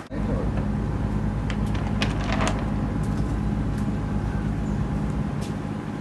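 Houseboat's diesel engine running steadily with a low hum.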